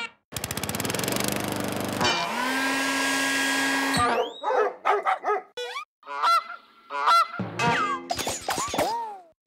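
Cartoon sound effects: a rapid rattling buzz, then a held horn-like tone that cuts off about four seconds in, followed by a string of short goose honks, some sliding in pitch.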